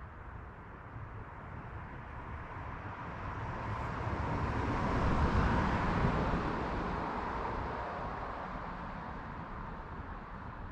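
A vehicle passing by, its tyre and engine noise swelling to its loudest about halfway through and then fading away.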